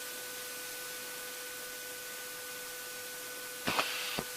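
Steady hiss of an aircraft intercom line with a faint steady electrical whine under it. Near the end comes a short burst of static and then a click, like a microphone keying on the intercom.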